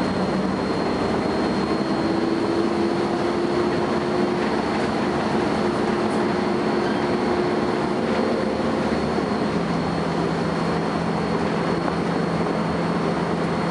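Volvo B10BLE single-deck bus running, its engine and road rumble carrying a steady high-pitched whine that holds one pitch throughout: the strange noise this bus has developed, its cause unknown.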